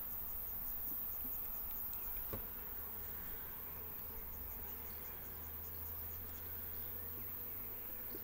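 Honey bees buzzing steadily around an opened hive while its frames are being inspected.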